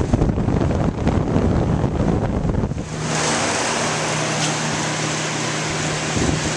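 Belt-driven exhaust fan running steadily behind a wall louvre: a rush of moving air with a low, steady hum. For about the first three seconds the sound is muffled and rumbly, then clearer and fuller from about three seconds in.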